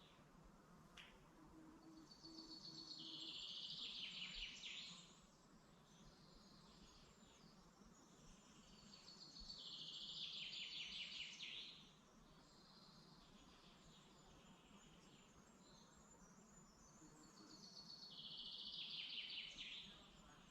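A songbird in woodland singing the same rapid trilling phrase three times, each lasting about three seconds and falling a little in pitch, with about seven seconds between phrases, over a faint steady background hiss.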